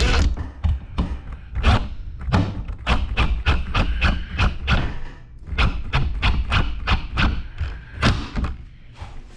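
A hammer striking wood framing lumber in a long series of blows, a few a second with quicker runs, the stud being knocked into place or nailed.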